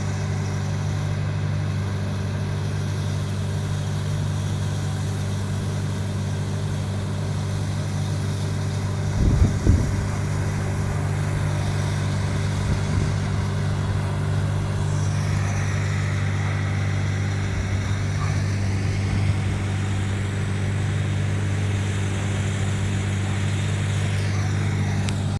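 A vehicle's engine running at a steady pitch, with two short knocks about nine to ten seconds in.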